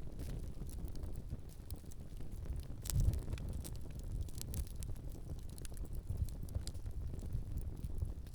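Wind buffeting the microphone, a fluctuating low rumble, with scattered sharp crackles and clicks and a louder knock about three seconds in.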